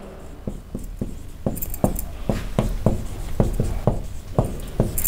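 Marker pen writing on a whiteboard: a string of short taps and strokes, about two or three a second, as the characters are written.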